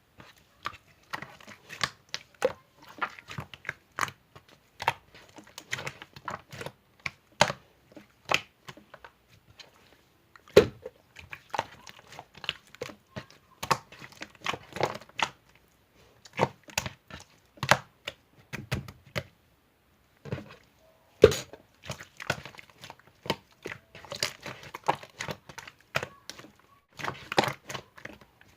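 Slime being squeezed and stretched by hand, giving irregular sharp popping clicks and short crackling bursts, several a second, with a few louder pops.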